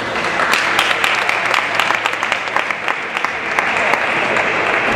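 Crowd applauding: dense, steady hand-clapping with voices mixed in.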